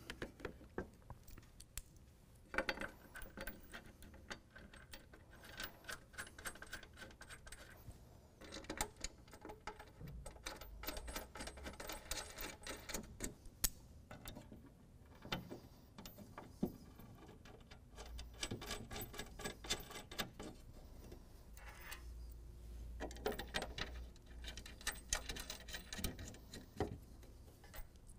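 Light metallic clicking and ticking in several short runs, from button-head bolts with flat and lock washers being fitted by hand to a steel tailgate plate.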